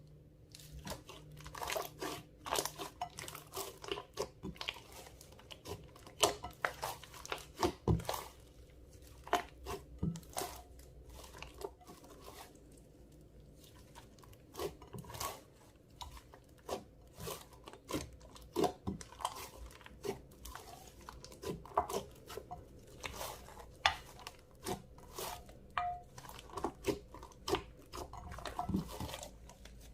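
Clear slime mixed with makeup and glitter being kneaded and pressed by hand, giving a dense run of irregular sticky crackles and pops.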